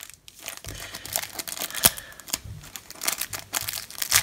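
Clear plastic wrapper being peeled and crinkled off a playing-card box, in irregular crackles, with one sharp crackle a little under two seconds in.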